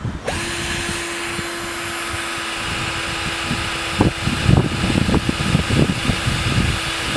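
Power drill running steadily while driving in the screws for a flagpole rope cleat, with irregular knocks joining about halfway through.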